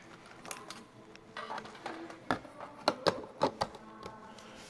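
Irregular clicks and taps of a round red LED signal light being pressed and worked into its mounting ring in a hole in the cab's sheet-metal side panel, with a few sharper knocks between about two and three and a half seconds in.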